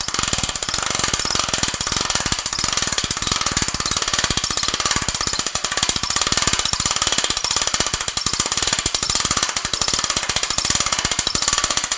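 Hand winch of a Global Truss ST-180 crank stand being cranked steadily, its ratchet pawl clicking rapidly as the second mast section is raised.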